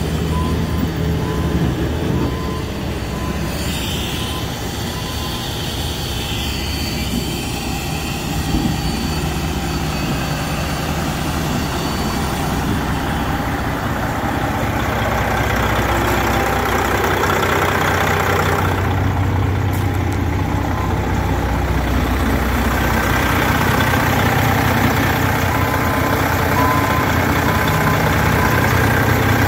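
Detroit Diesel Series 60 diesel engine of a Freightliner ST120 truck tractor idling steadily, growing louder toward the end as the open engine bay comes close.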